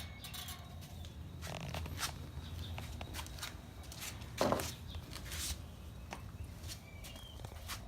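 Scattered light clicks and rustles of handling, with one louder knock about four and a half seconds in, over a steady low hum.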